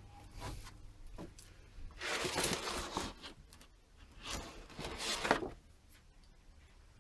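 Two short bursts of rustling and scraping, about two seconds in and again about four and a half seconds in, with a few faint ticks between them.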